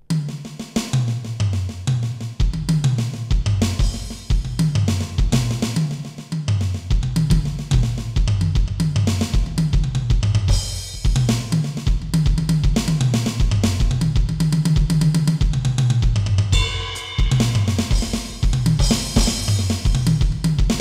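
Donner DED-200X electronic drum kit's sampled sounds, played at a slower tempo so the kit tracks each stroke: repeated fills stepping down in pitch across the toms over kick drum and cymbals.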